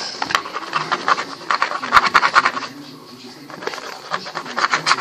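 Quick scratching and light tapping as a stick is poked along a wooden floor into a gap where a kitten paws at it. The scratching is busiest in the first half and thins out after it.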